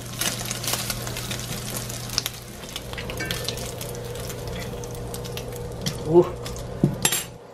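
Bacon sizzling and crackling in hot fat in a cast-iron skillet, a dense spatter of fine pops.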